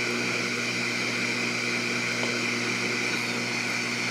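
Aoyue 2703A+ rework station's hot air system running steadily, its built-in air pump pushing air out through the hot air gun at a setting of 80P while the gun heats up: a steady hum with a hiss of air.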